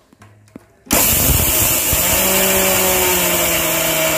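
Electric mixer grinder switched on about a second in, its motor running loudly and steadily as the small steel jar grinds washed pearl millet grains coarsely.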